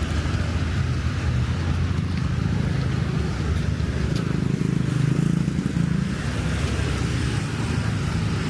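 Road traffic on a busy street: a steady low rumble of passing cars and motorbikes.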